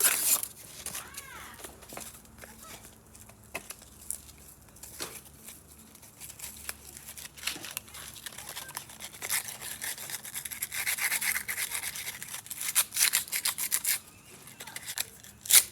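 Sandpaper rubbing back and forth inside the eye of a steel hatchet head, a scratchy rasp in quick strokes that is busiest in the second half, with one sharp knock near the end.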